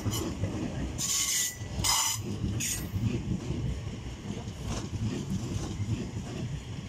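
Eight-car Class 450 Desiro electric multiple unit pulling out past the platform, a steady low rumble of wheels on the rails. A few short, higher rushing sounds come in the first three seconds.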